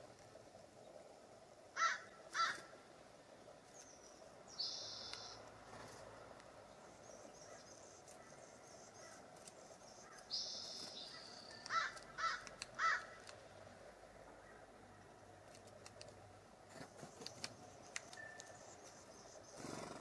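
Wild birds calling: two short, harsh calls about two seconds in and three more around twelve seconds, with two higher, longer calls near five and ten seconds, over a low steady outdoor hiss.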